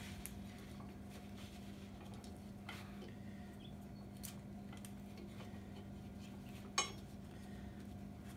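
Light metal clinks and rattles of ratchet-strap hooks and buckle as a strap is fitted around an engine pulley, with one sharp click about seven seconds in, over a steady low hum.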